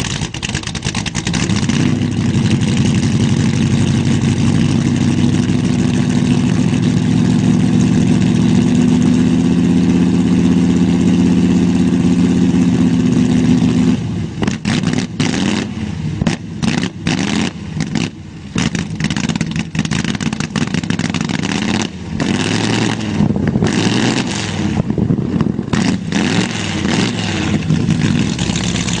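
Hot rod engine held at high revs and running steadily for about fourteen seconds. It is then revved in repeated short throttle blips, surging and dropping, as flame from the exhaust sets the brush pile alight.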